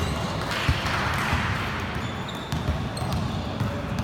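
Basketball bouncing on a court floor with repeated thuds, amid general game noise.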